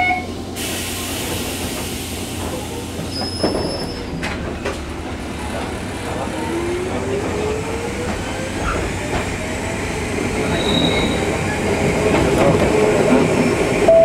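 Electric commuter train gathering speed, heard from inside the carriage: the running noise grows steadily louder, a motor whine rises in pitch about halfway through, and there are a few brief high wheel squeals.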